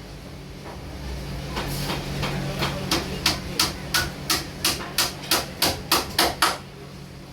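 Hammer blows on wood in a steady run of about three a second, growing louder, then stopping near the end: a carpenter nailing wooden beading strip onto a door. A low steady hum runs underneath.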